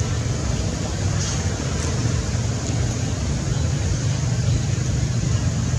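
Steady rumbling outdoor background noise, with two faint brief high sounds a little after a second in.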